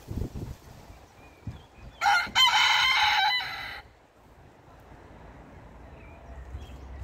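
Barnevelder rooster crowing once, a single cock-a-doodle-doo lasting just under two seconds that begins about two seconds in. A few low thumps come right at the start.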